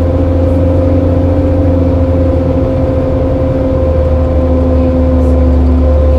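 A 2006 Orion VII transit bus's rear-mounted diesel engine idling, with a heavy low drone and a steady whine over it.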